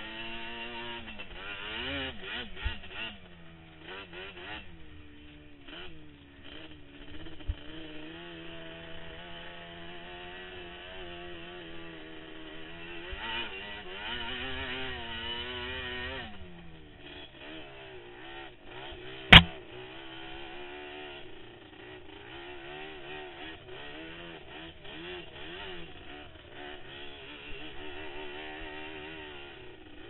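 Sport ATV engine running as the quad is ridden, its pitch rising and falling with the throttle, with a single sharp knock about two-thirds of the way through that is the loudest sound.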